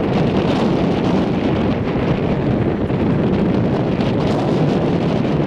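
Freight cars of a passing CSX manifest train rolling along the rails in a steady rumble, with wind buffeting the microphone.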